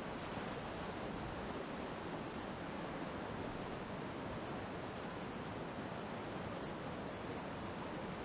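Whitewater rapids rushing steadily around a kayak, an even hiss of churning water with no single splash standing out.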